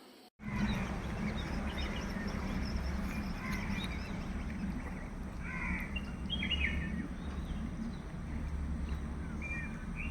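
Birds chirping and calling outdoors, with short chirps and quick falling calls over a steady low rumble.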